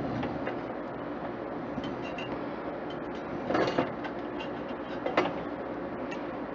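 A few sharp clicks and knocks of hands and pliers working at a power connector inside a desktop computer case, the loudest about three and a half and five seconds in, over a steady background hum.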